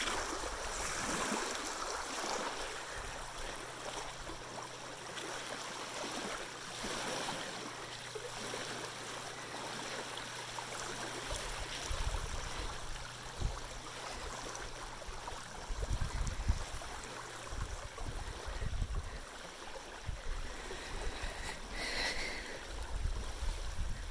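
Small waves lapping on a sandy lake shore, with wind buffeting the microphone in gusts now and then. A faint steady low hum runs through the middle.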